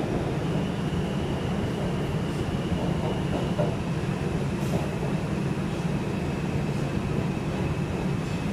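Interior of an R142 New York subway car: a steady low rumble of the train, with a thin, steady high whine above it.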